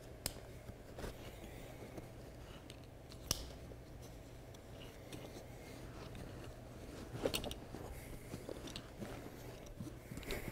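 Plastic side-release buckles and nylon pack straps being handled: a few sharp clicks, the loudest about three seconds in, with more around seven seconds and near the end, among soft fabric rustling.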